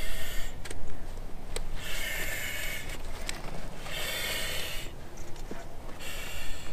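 Firefighter breathing through an SCBA facepiece and demand regulator: a rush of hissing air with each breath, about every two seconds, with a few light knocks from gear in between.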